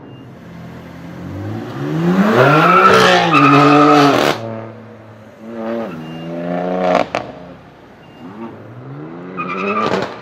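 BMW M4 F82's twin-turbo straight-six, through a loud Fi valved exhaust, revving hard three times, the pitch climbing and dropping each time. A sharp exhaust crack follows the second rev.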